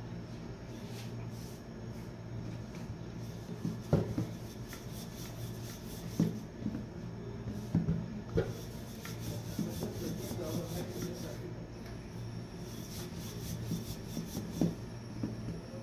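Wooden rolling pin rolling out a round of flatbread dough on a countertop: rubbing and rolling, with irregular knocks of the wooden pin from about four seconds in. A steady low hum runs underneath.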